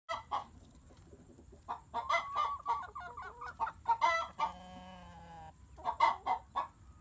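A flock of chickens clucking in short bursts, with one longer drawn-out call about four and a half seconds in.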